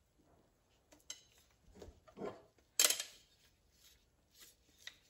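Steel plates and friction discs from a 48RE transmission's forward clutch pack clinking and scraping against each other as they are handled and stacked. It comes as a handful of light clinks, the sharpest a little past the middle.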